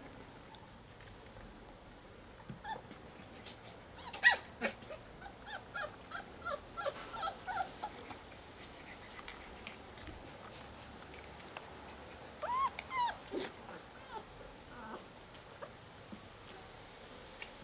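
Labrador puppies squeaking and whimpering in play: a sharp knock about four seconds in, a run of short high squeaks just after it, and a couple of brief rising-and-falling whines about twelve to thirteen seconds in.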